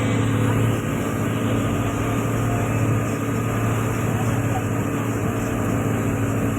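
Boat engine running steadily at a constant speed, a low even drone that holds the same pitch throughout.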